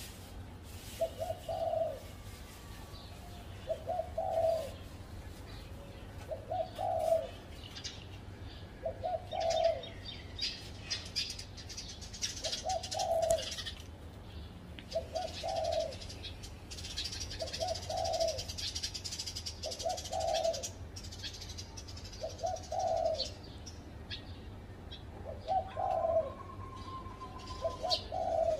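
Spotted dove cooing, repeating a short low phrase about every two and a half seconds, with smaller birds chirping in the background.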